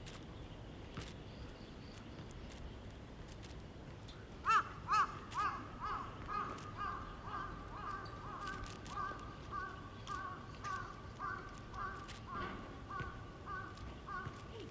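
A bird calling a long series of repeated, evenly spaced notes, about two to three a second. The series starts loud about four and a half seconds in and slowly fades.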